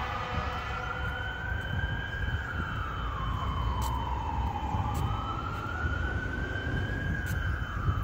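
A siren wailing, its pitch slowly rising and falling in cycles of about five seconds, over a low rumble.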